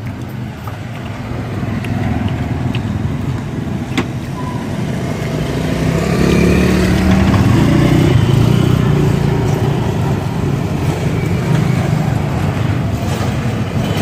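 Road traffic of motorbikes and cars running past, growing louder about six seconds in as engines pass close.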